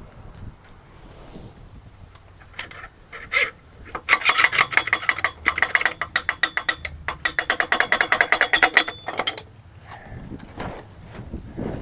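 Socket ratchet clicking rapidly, about ten clicks a second, in two long runs as the main bearing cap bolts of a Big Cam Cummins diesel block are run out, with a few metallic knocks before it.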